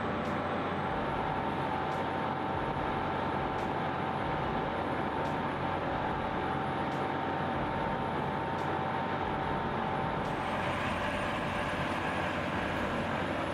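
Industrial wood crusher running: a steady, dense mechanical din with a constant hum, growing brighter about ten seconds in.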